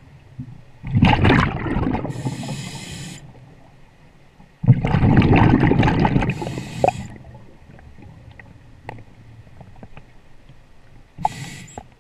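Scuba diver breathing through a regulator, heard underwater: two loud rushes of exhaled bubbles about four seconds apart, each ending in a short high hiss from the regulator, and another brief hiss near the end.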